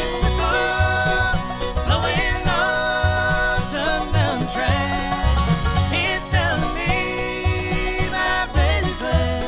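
Bluegrass band playing live: banjo and guitar picking over a steady bass pulse, with a sliding lead melody line on top.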